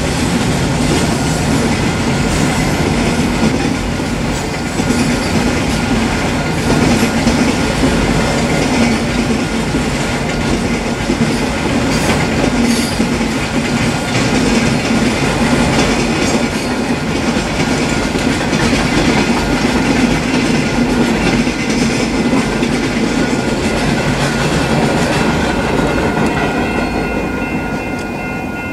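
Freight train's autorack cars rolling past close by, steel wheels running on the rail, with the sound falling away near the end as the last cars clear. The grade crossing's warning bell rings steadily and is heard more clearly once the train noise drops.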